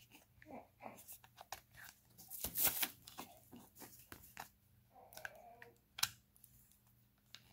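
Soft phone cases being handled: a black case peeled off an iPhone and a red one pressed on, making rubbery rubbing, scraping and small clicks. The loudest scrape comes about two and a half seconds in, and a sharp click about six seconds in.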